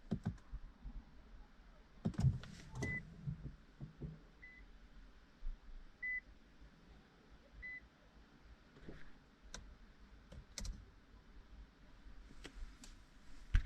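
A car's warning chime beeps four times, short even tones about a second and a half apart, among scattered clicks and light knocks from handling in the cabin.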